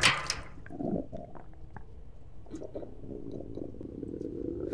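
A low, muffled gurgling rumble, with a few faint clicks.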